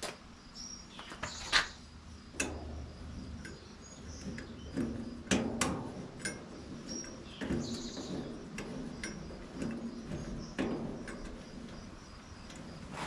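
Scattered knocks and clicks, with brief bird chirps in the background.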